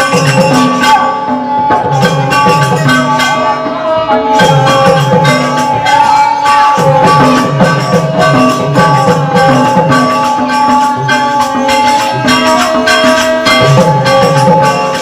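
Birha folk ensemble playing: a harmonium holds a melody in steady reedy tones over a repeating hand-drum rhythm whose bass strokes dip in pitch, with light jingling percussion.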